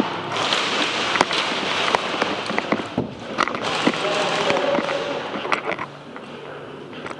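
Airsoft guns firing: sharp single shots at irregular intervals over a dense background of noise and indistinct voices, thinning out in the last second or so.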